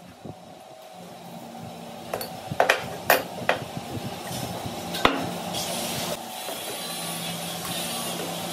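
About five sharp metal clanks, some ringing briefly, over a steady machine hum. The loudest comes about three seconds in.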